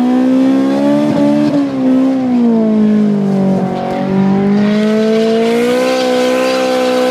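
Honda S2000's four-cylinder engine held at high revs, its pitch wavering up and down before holding steady. A hiss builds in about four and a half seconds in.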